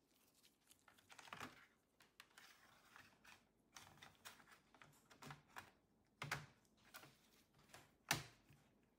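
Near silence broken by a few faint clicks and taps from handling the laptop's bottom cover and a plastic pry tool, the clearest about six and eight seconds in.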